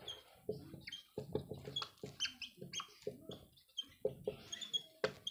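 Marker pen squeaking and tapping on a whiteboard as a line of handwriting is written: a quick, uneven run of short squeaks and light knocks.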